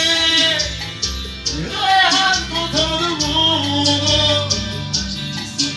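A man singing an arrocha song over band accompaniment with a steady beat.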